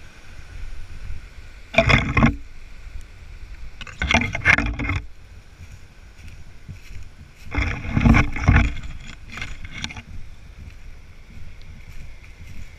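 Rubbing and rustling on a hand-held camera's microphone as it is carried on a walk, in four loud bursts over a faint steady background.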